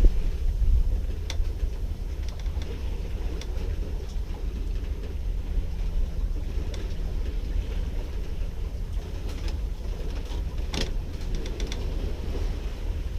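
Steady low rumble of a sailboat under way, with wind on the microphone. A few sharp clicks come through, the loudest about eleven seconds in.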